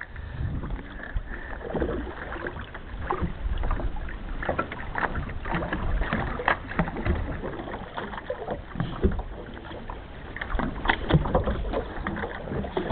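Choppy water slapping against the hull of a small fishing boat, with a low wind rumble and scattered knocks and clatter aboard.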